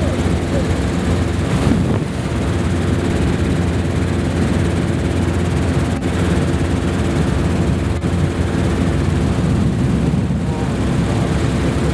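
Helicopter engine and rotor droning steadily, heard from inside the cabin.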